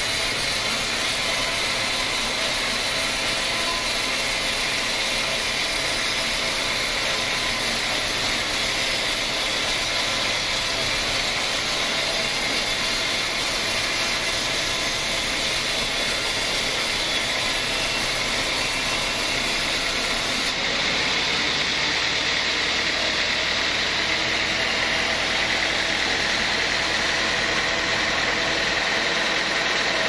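Band sawmill running steadily as its blade rips lengthwise through a teak log, giving a continuous mechanical noise that gets a little louder after about twenty seconds.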